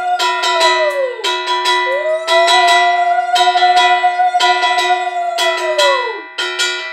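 Brass puja hand bell rung rapidly and steadily, over a conch shell blown in long held notes whose pitch sags as each breath runs out: about a second in, and again near the end.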